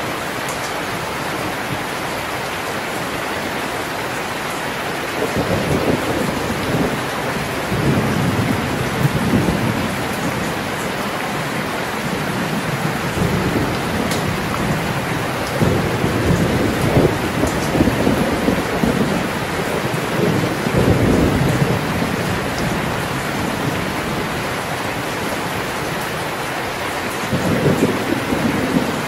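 Steady heavy rain with thunder rumbling in long, low rolls: the first about five seconds in, a longer spell through the middle, and another near the end.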